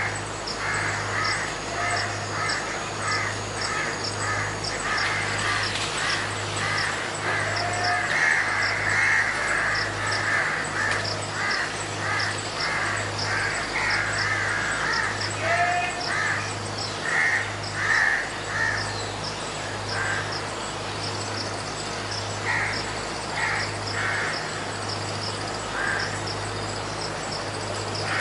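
Animal calls repeated in short runs, several a second, through most of the clip, thinning to a few scattered calls near the end. Under them run a regular high ticking and a steady low hum.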